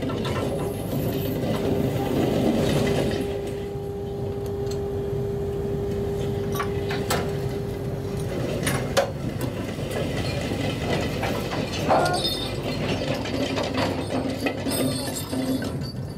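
Trawler deck machinery running while the trawl net is worked over the deck: a steady mechanical hum with a held tone that stops about eight seconds in, and scattered metal clanks and knocks.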